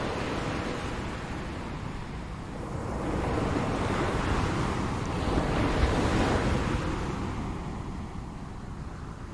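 Ocean surf: the wash of one wave dies away at the start, then the next wave swells in a few seconds later, peaks midway and ebbs out again toward the end, over a steady low rumble.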